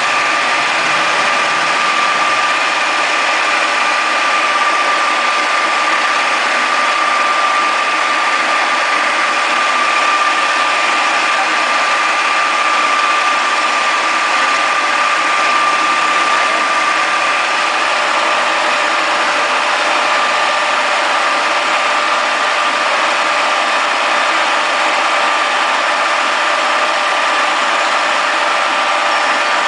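Conventional milling machine running steadily while friction stir welding aluminium alloy, an even machine noise with a steady high whine over it.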